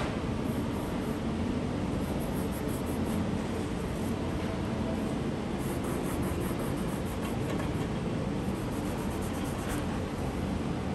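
Steady room ventilation hum and hiss, with a short knock right at the start.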